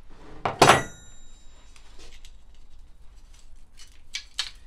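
Rusty steel parts of an Andre Hartford friction damper being handled on a workbench: a metal disc is put down with one loud clank about half a second in that rings briefly, followed by lighter clinks and scraping as the arms and washers are moved, and two sharper knocks near the end.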